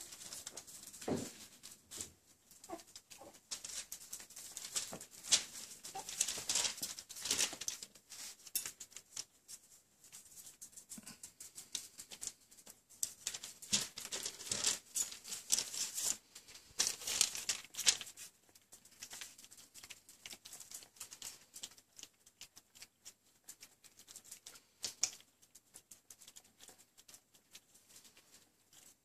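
Wirehaired miniature dachshund puppies eating raw minced meat from a plate: a busy run of small wet smacking, licking and chewing clicks. The clicks thin out and grow fainter after about eighteen seconds.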